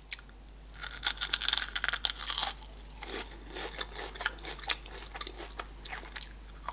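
A Raffaello coconut-almond candy with a crisp wafer shell being chewed: a dense, crackly crunching for about two seconds soon after it goes into the mouth, then slower, softer chewing clicks.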